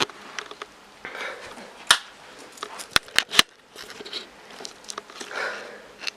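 Rustling and handling noises in a small room, with several sharp knocks or clicks, the loudest three coming in quick succession about three seconds in.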